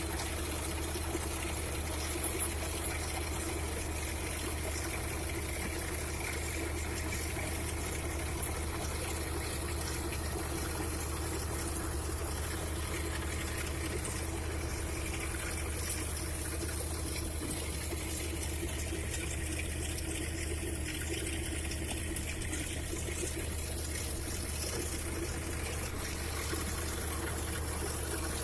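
Trencher machine digging in hard soil: a steady low engine hum under a continuous noisy rush from the cutting.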